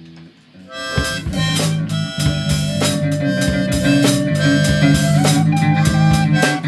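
Instrumental song intro: after a faint first second, a drum kit, bass and guitar come in together and play a steady beat, with sustained melody notes over them.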